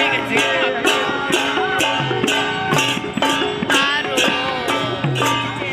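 Hand cymbals struck together in a steady rhythm, about three clashes a second, each ringing on, with voices singing along.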